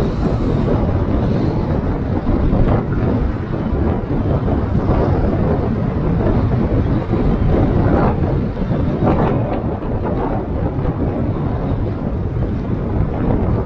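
Wind buffeting the microphone over steady road noise from a car driving along a city road, a dense low rumble throughout.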